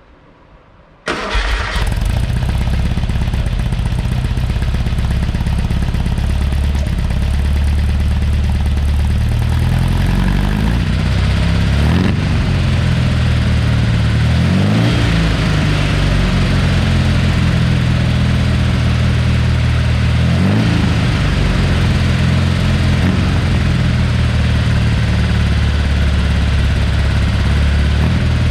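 Freshly rebuilt Porsche 912 air-cooled flat-four, with a mild cam, starting about a second in and catching at once, then running at idle. It is revved up and back down three times, mid-way and later on, and settles back to a steady idle each time.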